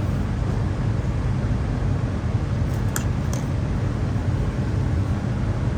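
Steady low mechanical rumble with no change in level, and a couple of faint clicks about three seconds in.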